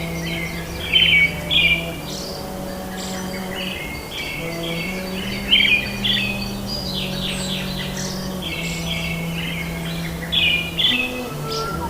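Birds chirping and twittering in quick repeated phrases over soft background music of sustained low notes that change every second or two.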